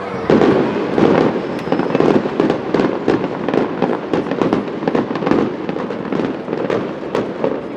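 Aerial fireworks bursting overhead: many sharp pops and crackles in quick succession from exploding shells, loudest in the first couple of seconds.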